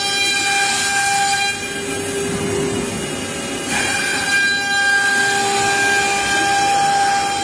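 CNC machining center's HSD spindles whining at a steady pitch while cutting a wooden panel, with a rushing cutting noise under the whine. The whine and cutting ease for about two seconds a little way in, then return at full strength.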